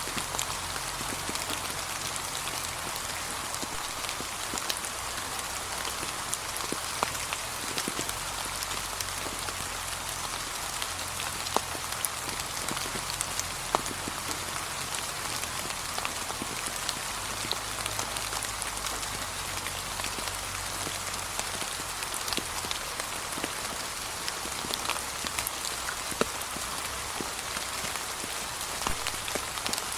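Steady, gentle rain falling on fallen autumn leaves, a continuous hiss with many distinct drops pattering throughout.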